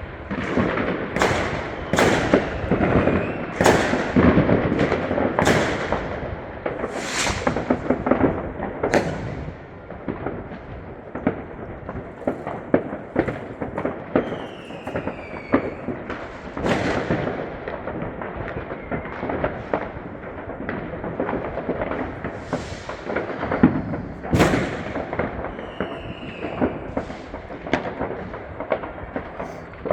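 Fireworks going off: many sharp bangs and crackling firecrackers, a few with a falling whistle. Densest in the first ten seconds, then sparser, with one especially loud bang about 24 seconds in.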